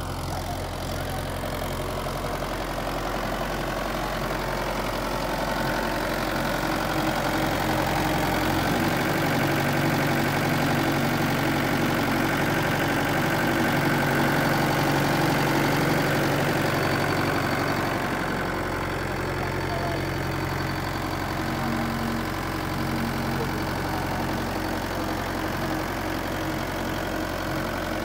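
Mahindra 5045 tractor's diesel engine running steadily near idle. It picks up and gets louder about a third of the way in, then drops back to idle about two-thirds through.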